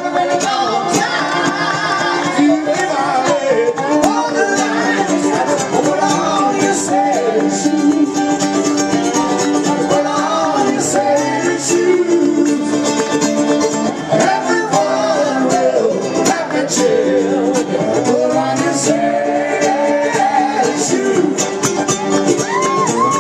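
Live acoustic band music: a guitar and a dobro played with a slide, with a man singing at times.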